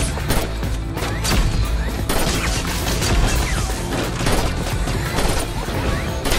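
Action-film soundtrack: bursts of gunfire and crashing impacts over a loud, driving music score, with sharp shots coming irregularly, several a second at times.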